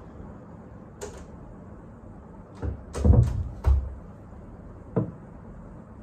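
A wooden cupboard door being handled: a sharp click about a second in, a cluster of knocks and thuds around three seconds in as it is opened and shut, and one more click near the end.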